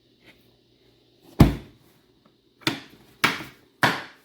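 Hard plastic tool storage boxes being handled: a heavy thud about a second and a half in, then three sharp knocks about half a second apart near the end, as of cases and lids being set down, closed or latched.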